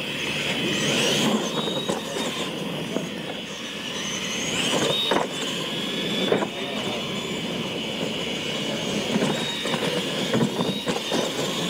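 Radio-controlled monster trucks racing on dirt: a high motor and gear whine that rises and falls with the throttle, over the rough rumble of the tyres, with a few sharp knocks as the trucks hit the ramps around the middle.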